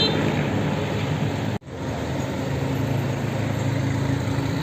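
Bus engine running close by amid road traffic noise, with low steady engine tones. The sound cuts out sharply for a moment about one and a half seconds in.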